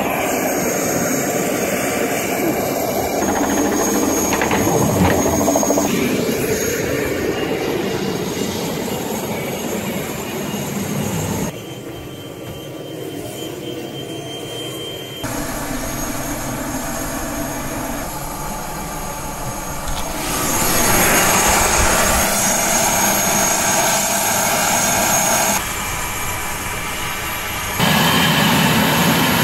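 Jet engines running on an airport ramp: a steady turbine whine over a rumbling rush. It comes in several short clips that cut abruptly from one to the next, each at a different level.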